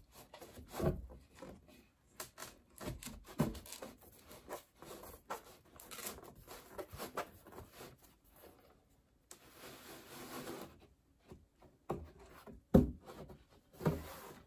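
Drawer back panel being worked by hand into the grooves of the drawer's side panels: scattered light knocks and scrapes of board on board, with a longer steady rub about nine seconds in as it slides along the groove.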